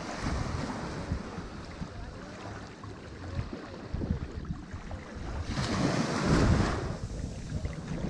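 Ocean surf washing ashore over a steady low rumble, with a louder wave breaking and washing in about six seconds in.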